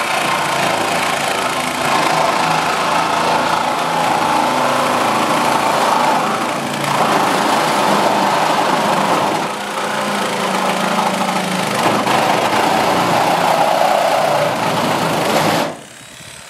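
Reciprocating saw cutting through car-body sheet metal, running steadily with two brief dips, then stopping abruptly near the end.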